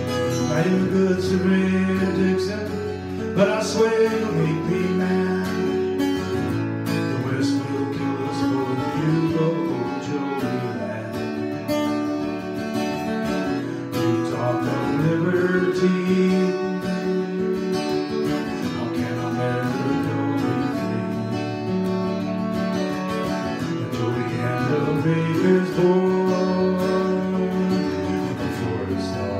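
Acoustic guitar strummed and picked, with a clarinet playing the melody over it in an instrumental passage.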